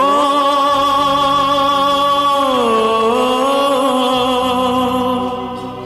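A singer holds one long sung 'o' vowel with vibrato over Hindi film song accompaniment; the note dips in pitch about halfway through, rises back, and fades near the end.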